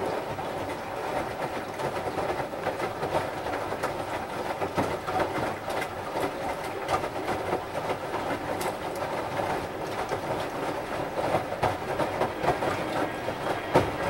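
Samsung WD136 front-loading washer-dryer tumbling a wet load of clothes in the wash: water sloshing and fabric slapping inside the turning drum, with a steady clatter of small knocks.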